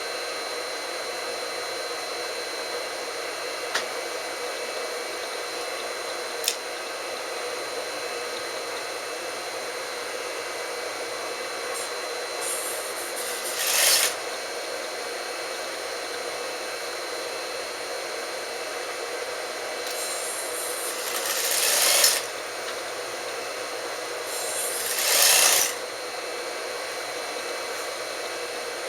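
Industrial sewing machine stitching in three short runs, each speeding up and then stopping abruptly, over the steady hum of its running motor. Two sharp clicks come earlier.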